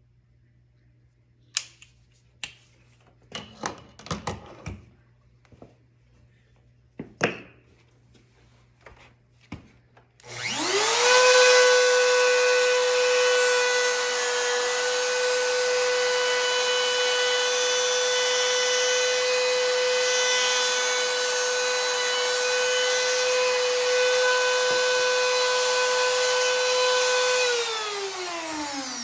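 A few sharp clicks and knocks of handling the router and jig, then a trim router starts about ten seconds in, spins up to a steady high whine and runs while cutting a binding and purfling channel along the edge of a guitar body. Near the end it is switched off and its pitch falls as it spins down.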